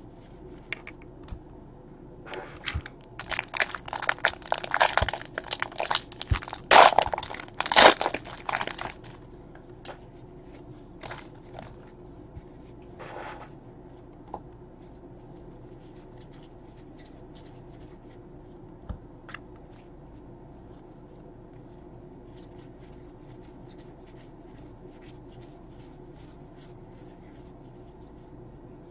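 Trading cards handled and flipped through by hand: a burst of rapid rustling and clicks lasting about six seconds, starting a couple of seconds in, then only occasional soft ticks.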